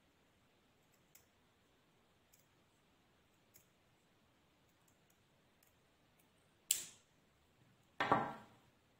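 Scissors cutting thin fabric: a few faint snips a second or so apart, then a sharp, louder snip near the end, followed by the scissors being set down on the table with a brief clatter, the loudest sound.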